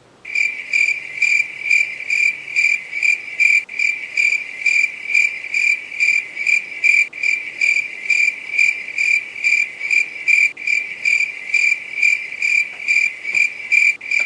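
Cricket chirping sound effect: a loud, even run of high chirps, about two and a half a second. It is the stock comedy gag for an awkward silence.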